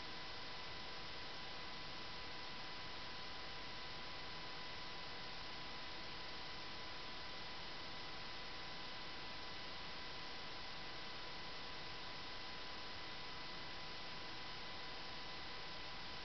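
Steady electrical hiss with a faint high-pitched whine held at one pitch; no distinct events.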